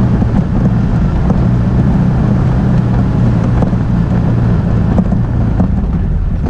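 Can-Am Outlander ATV engine running steadily while riding, with wind on the microphone.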